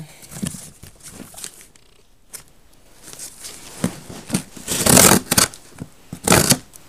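Scissors cutting and scraping along the packing tape of a cardboard box: scattered short clicks and scrapes, with two louder rough noises in the second half.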